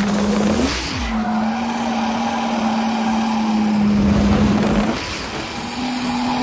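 Nissan 180SX drift car's engine held at steady high revs while its rear tyres screech through a long slide. The revs dip and recover just under a second in, then fall away at about five seconds before climbing back.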